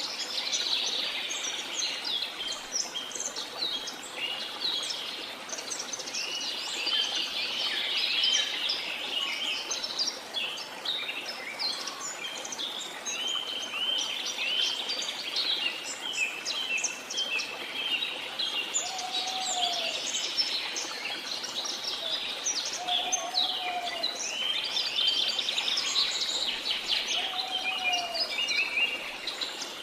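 A chorus of birds chirping and calling continuously over a steady rush of waterfall water. In the second half a lower, arching call repeats three times, about four seconds apart.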